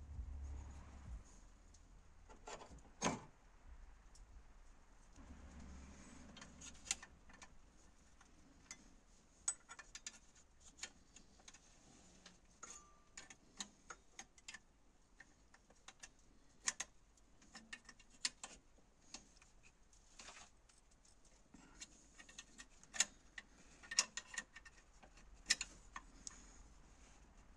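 Socket ratchet clicking in short irregular runs, with small metal clinks of the tool against the fittings, as bolts on the EGR valve pipe are worked.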